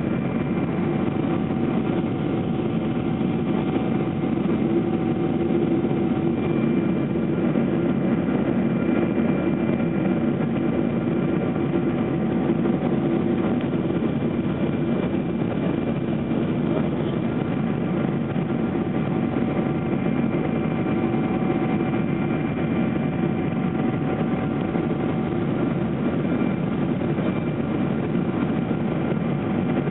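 Steady drone of a Boeing 777 airliner's jet engines and airflow heard inside the cabin on approach to land, a dense rumble with several steady whining tones above it.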